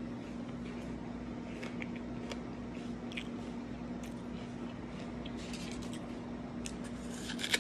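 Faint crunching of a bite of crisp Pixie Crunch apple being chewed with the mouth closed, over a steady low hum. A brief louder crunch or handling sound comes near the end.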